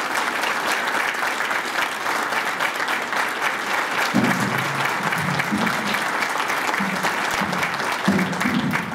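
Audience applauding steadily, with dense clapping all the way through.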